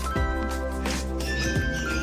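Background music with a steady beat and bright bell-like melody notes.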